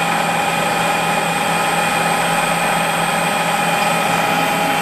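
Harrison M300 lathe running steadily with its spindle turning, a constant machine hum with a mix of steady whining tones.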